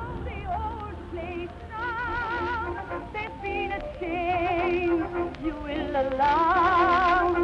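Music: a high voice sings a melody with strong vibrato over a steadier lower accompaniment.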